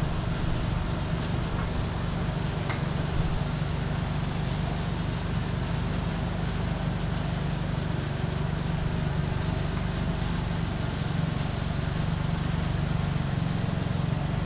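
Forklift engine running steadily at low speed, a constant low hum, as the forklift inches its forks forward; a couple of faint clicks near the start.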